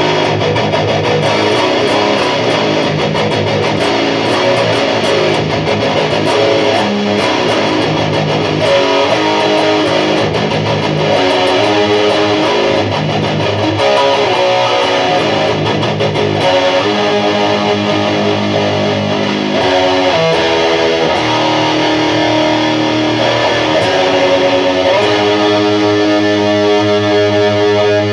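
Heavily distorted electric guitar playing low, heavy riffs in drop A-flat tuning through Bare Knuckle Warpig ceramic humbuckers. The amp is on its high-gain modern channel, and the result has a snarly, bass-heavy tone picked up by a camera microphone.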